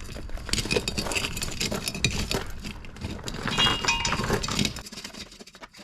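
Metal clanking and clinking as a heavy Ford 9-inch rear axle is moved. A brief metallic squeak comes about three and a half seconds in, and the knocks die down near the end.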